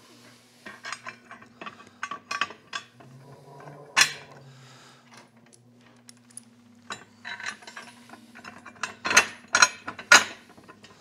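Irregular metallic clicks and knocks of welded aluminum jack plate pieces and their bolts being handled and fitted together on a bench. There is one sharp knock about four seconds in and a cluster of louder clanks near the end.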